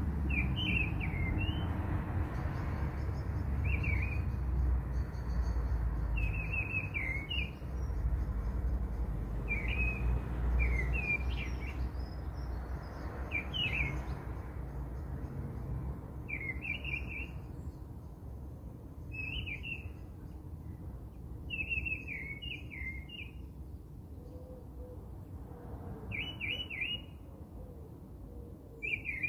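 A bird chirping in short repeated phrases every two or three seconds, over a low steady rumble that is strongest in the first half.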